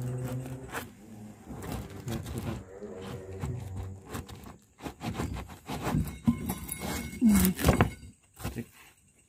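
Hornets (Vespa affinis) buzzing low and steady close to their nest, in two stretches in the first four seconds. Then a run of sharp knocks, scrapes and rustles from a gloved hand working at the nest, loudest between about five and eight seconds in.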